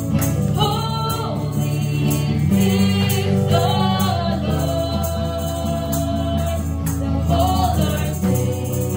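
Live gospel worship song: a woman singing long notes with vibrato, backed by acoustic guitar and keyboard chords over a steady beat.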